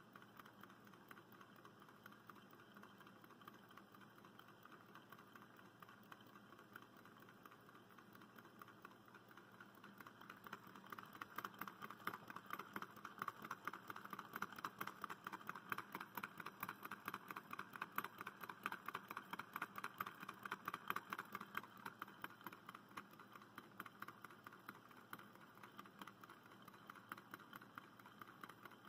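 Two small low-temperature-differential Stirling engines running, one with a steel-wool regenerator in its displacer. Their moving parts make a faint, rapid, light clicking that grows louder for a stretch in the middle.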